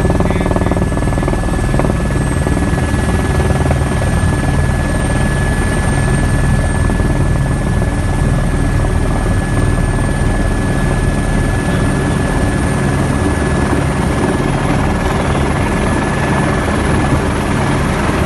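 Helicopter in flight heard from inside its cabin with the door open: loud, steady rotor and engine noise with a thin steady whine above it.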